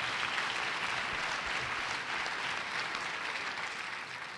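Audience applauding, fading gradually near the end.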